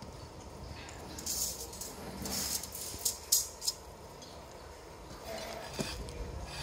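Hand tools scraping and knocking on ceramic tile during tiling work, with three sharp clicks about three seconds in.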